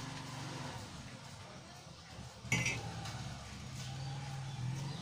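A single short, hard clink about halfway through, from small parts and copper jumper wire being handled on an opened phone, over a low steady hum.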